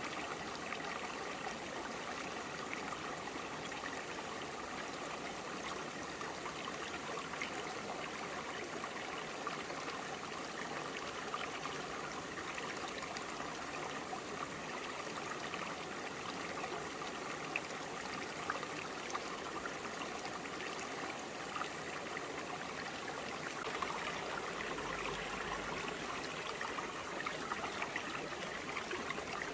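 Shallow forest stream flowing over broad rocks, a steady babble of trickling water. A faint low rumble comes in near the end.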